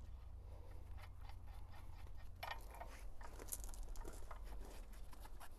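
Faint, scattered clicks and scrapes of gloved hands working bolts and fittings on the steel blade bracket of a tractor-mounted hoe attachment, over a low steady rumble.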